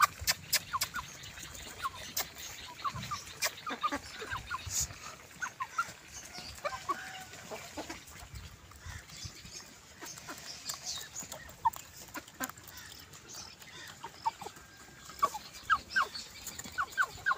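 Young chickens clucking in short, scattered calls, with light sharp taps as they peck food from a hand.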